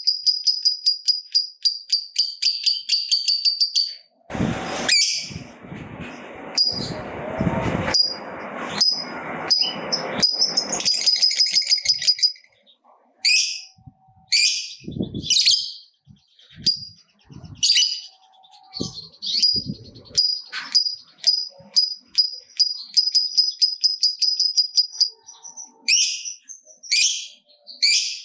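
Lovebird calling: a long, fast chattering trill of high, sharp repeated notes (the prized 'ngekek panjang'), then a few seconds of scratchy noise, then separate shrill chirps and shorter trills.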